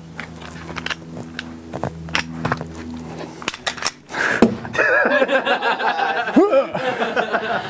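Sharp metallic clicks and clacks of a Glock 17 pistol being handled for a field strip, over a faint steady hum. About halfway through, a loud wavering voice cuts in, laughing or vocalising.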